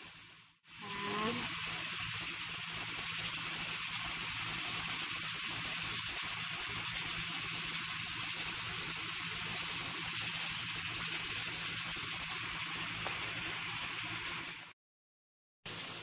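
Chicken adobo sizzling in a frying pan on the stove: a steady hiss that cuts out for about a second near the end.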